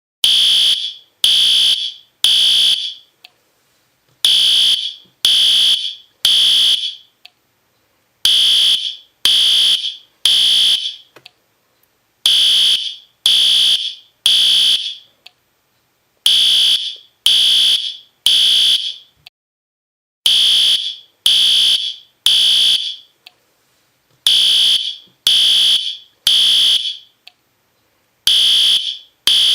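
System Sensor P2R fire alarm horn strobe sounding a very loud, high-pitched horn in the temporal-three pattern: three blasts of about half a second each, then a pause, repeating about every four seconds. This is the standard fire evacuation signal.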